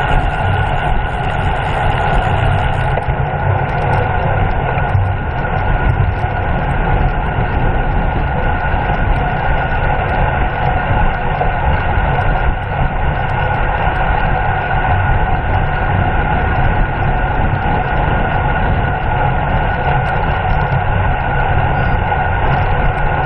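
Steady, loud wind rumble across the microphone of a camera carried on a bicycle ridden at race speed.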